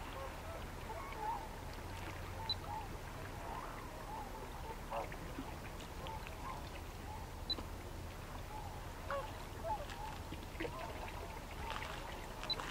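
A distant flock of waterfowl calling, many short overlapping calls scattered throughout, over a low steady rumble.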